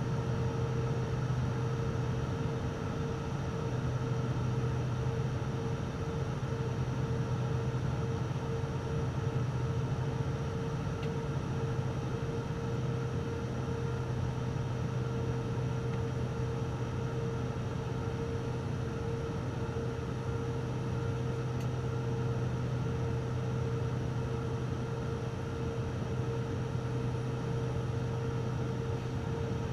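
Steady drone of a turboprop airliner's engine and propeller heard from inside the cabin: a constant low hum with a steady higher tone over a rushing hiss of airflow.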